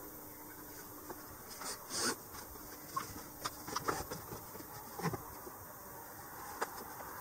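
A sika deer hide being handled and smoothed by hand, giving irregular soft rustles and light knocks. The loudest is a swishing rustle about two seconds in.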